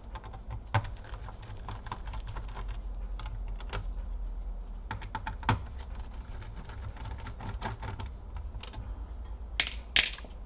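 Small irregular clicks and taps of a screwdriver and screws against the laptop's plastic casing as the screws holding the upper casing are taken out, with a couple of louder clicks near the end.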